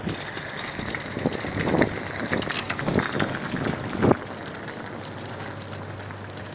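Luggage trolley pushed over concrete, giving irregular rattles and knocks that die away about four seconds in. A steady low hum carries on after that.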